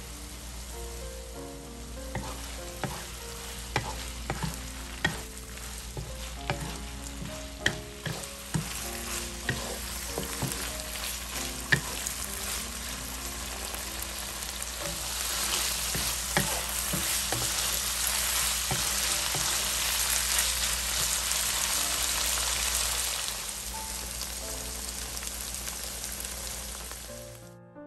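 Ground beef with peppers and scallions sizzling in a nonstick frying pan as it is stir-fried, with sharp clicks and scrapes of stirring against the pan through the first half. The sizzle grows louder about halfway through and eases off a few seconds before the end.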